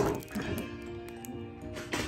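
Soft background music with steady held notes, under a few faint crackles of a plastic card wrapper being handled.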